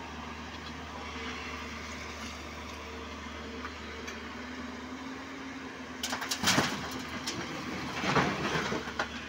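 JCB tracked excavator's diesel engine running steadily, then stone boulders crashing and clattering into the tipper truck's body twice, about six seconds in and again about eight seconds in, as the bucket dumps its load.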